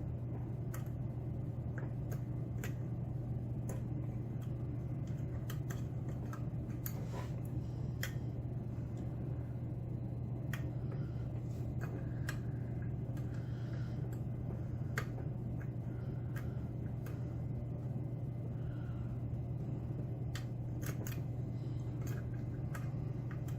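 Faint, irregular small metallic clicks and taps of a lock pick and tension wrench working the pins of a Mauer SKG dimple lock cylinder, over a steady low hum.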